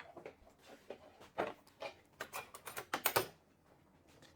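Irregular light clicks and taps of kitchen utensils and containers as baking powder is measured out, coming in a quick cluster in the middle.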